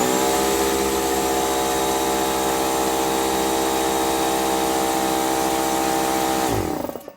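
Central Pneumatic 1.5 hp, 6-gallon air compressor's electric motor and pump kicking on the moment it is plugged in and running steadily, a sign the repaired power cord now reaches the switch. Near the end it shuts off and the motor winds down with a falling pitch.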